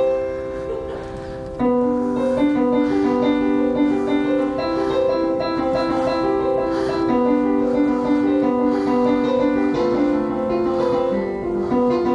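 Electronic keyboard played with the feet in a piano voice: a slow melody over held chords, soft for the first second or so, then fuller.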